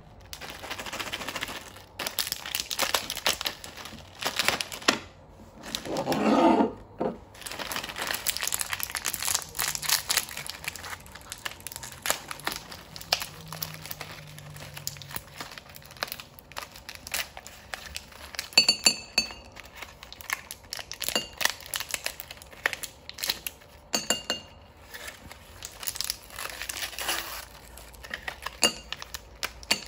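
Plastic blister packaging of gumballs crinkling and tearing as it is opened by hand, with hard gumballs clinking as they drop onto a ceramic plate in the second half.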